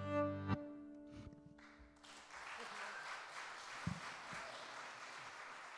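Fiddle, acoustic guitar and button accordion hold the tune's final chord, which stops sharply about half a second in and rings away. An audience starts applauding about two seconds in.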